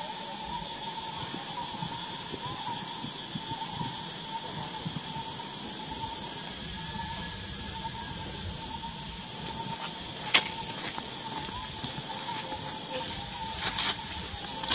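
Steady, continuous high-pitched drone of an insect chorus, with a faint wavering tone beneath it and a single sharp click about ten seconds in.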